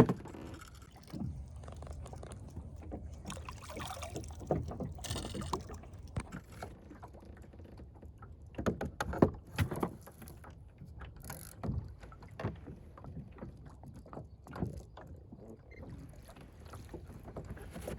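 Irregular knocks, thumps and splashing as a big catfish is landed by hand beside and into a small plastic fishing boat, with the loudest cluster of knocks about halfway through.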